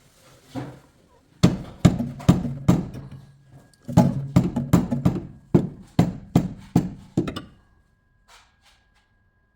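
Hammer blows knocking subframe collars into a Nissan 350Z's subframe mounts: about fourteen sharp strikes, two or three a second, in two runs with a short pause between, each ringing briefly.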